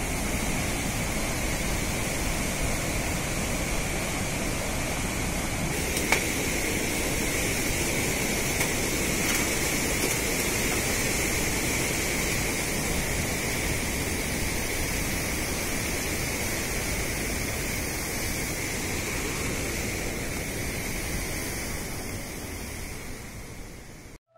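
Rushing mountain stream tumbling over boulders: a steady, even roar of white water that fades out near the end.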